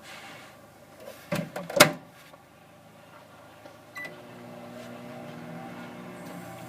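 Microwave oven door shut with two knocks, a short beep about four seconds in, then the oven starts running with a steady hum.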